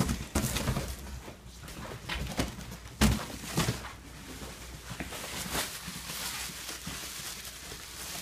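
Unpacking noise: a cardboard box and styrofoam packing pieces being handled and shifted, with knocks and rustles and a sharp thump about three seconds in. Bubble wrap is crinkled near the end.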